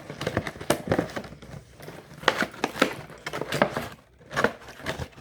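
Close-up eating sounds: chewing and mouth clicks with the crinkle of food packaging, heard as an irregular run of sharp crackles.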